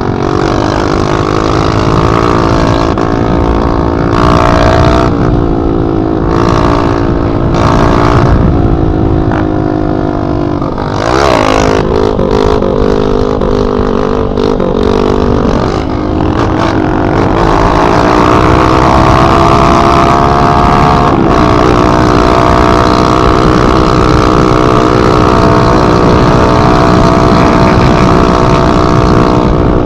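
Yamaha XTZ trail bike's single-cylinder four-stroke engine running loud with only the header pipe and no muffler, heard from the rider's seat while riding. Its pitch wanders as the throttle changes, jumps up and falls back quickly about eleven seconds in, then holds a steady, higher note for the second half.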